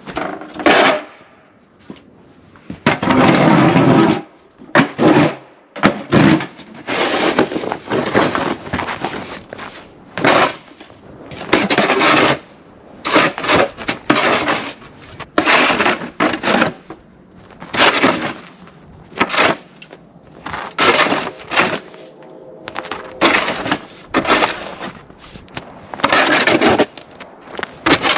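Snow shovel being pushed and scraped through fresh snow in repeated strokes, about one every one to two seconds.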